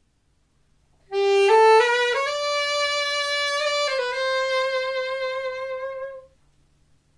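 Saxophone playing a slow phrase that starts about a second in: a few short notes stepping upward, a long held note, then a step down to a second long note that fades out about six seconds in.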